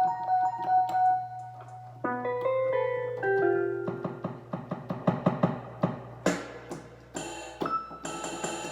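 Piano-like notes played on an electronic keyboard: a falling run of held notes, then a string of quick, short notes with sharp attacks.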